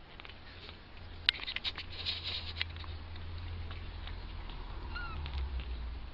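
Two-week-old kittens scrambling over one another on a blanket: a flurry of scratchy clicks and rustling from their claws on the fabric about a second in, sharpest at the start, and one tiny high squeak near the end.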